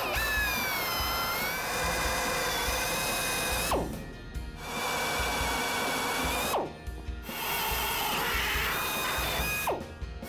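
Pneumatic air drill running with a high whine that sags in pitch as the bit bites into the car's sheet-metal brackets. The trigger is let go three times, roughly every three seconds, and the motor spins down with a falling whine before starting up again.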